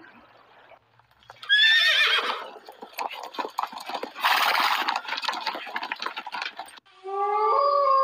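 A horse neighs with a falling, wavering call about a second and a half in, followed by the clatter of a herd's hooves. Near the end, wolves start howling in long held tones at several pitches.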